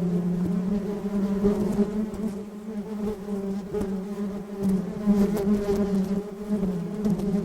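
Swarm of honeybees buzzing: a dense, steady hum of many wingbeats, pitched around 200 Hz, wavering slightly as the bees move about.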